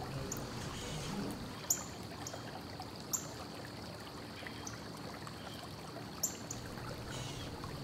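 Small metal bolts and K-nuts being fitted by hand into a steel door hinge, giving three light, sharp clicks over a faint steady hiss.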